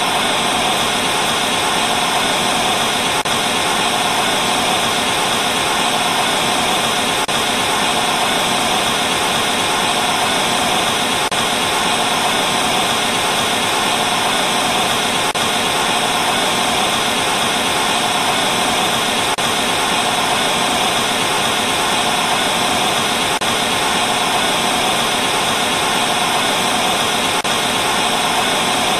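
Television static from a no-signal channel: a steady hiss with a faint click about every four seconds.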